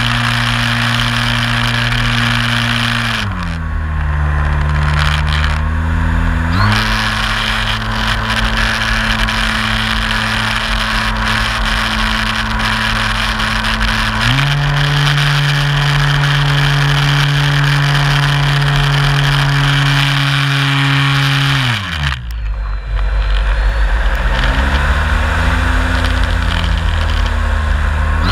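Brushless electric motor and propeller of an MX2 RC aerobatic plane, heard from an onboard camera with wind rushing over it. The steady drone dips in pitch a few seconds in and comes back, steps higher through the middle, then drops low near the end before rising again as the throttle is worked.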